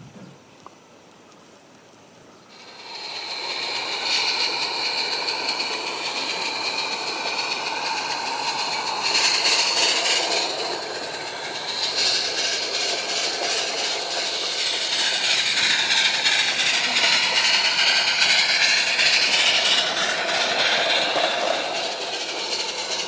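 Small 0-4-0 garden-railway steam locomotive and its goods wagons running on the track, starting about two and a half seconds in. The sound is a steady steam-and-running noise with fast clicking, and high wavering tones rise and fall in the later part.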